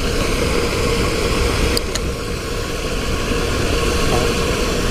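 A steady low rumble with a constant hum, like a motor running, and two short sharp clicks about two seconds in.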